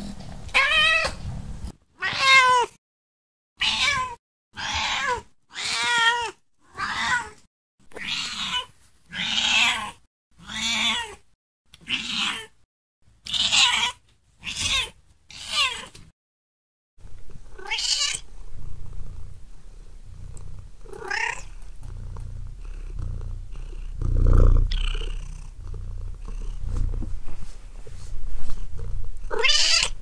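Domestic cats meowing: a quick series of about a dozen short meows with silent gaps between them, then a few more scattered meows over a steady background hiss, with a low rumble about two-thirds of the way through.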